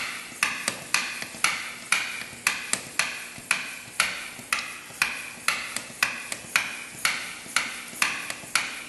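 Hand vacuum pump for oil sampling being pumped steadily, a sharp click at each stroke about twice a second, drawing used engine oil up the tubing from the dipstick tube into the sample bottle.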